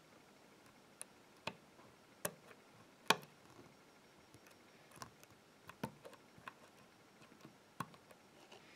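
Small, sharp, irregular clicks of a lock pick and tension wrench working the pin stacks of a padlock's half Euro cylinder: about ten scattered clicks, the loudest about three seconds in.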